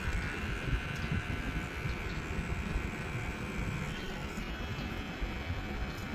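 Electric hair clipper running steadily with a high, even whine as it cuts short hair on the side of the head and the nape, over a low rumble.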